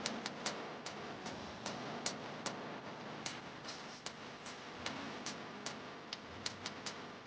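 Hard-soled footsteps clicking on pavement, about two to three sharp clicks a second at an uneven pace, over a steady background hiss.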